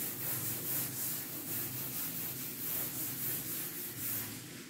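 Chalkboard duster wiping chalk off a blackboard in rhythmic back-and-forth strokes.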